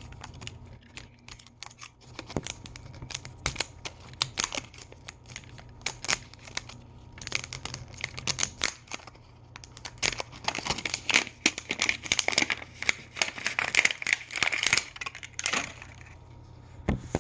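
Plastic packaging of an LOL Surprise Miniverse ball being crinkled and torn open by hand, with many small clicks and taps. The crinkling is densest from about ten to fifteen seconds in.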